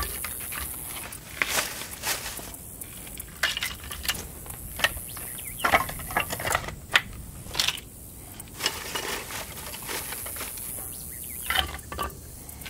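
Split wooden kindling sticks knocking and clattering against each other and on a metal grill grate as a fire is laid, in a string of irregular short knocks and clicks.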